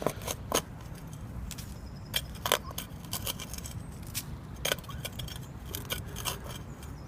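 Irregular scrapes and sharp metallic clinks, a few at a time, from a hand digging tool and small metal items being handled in stony garden soil.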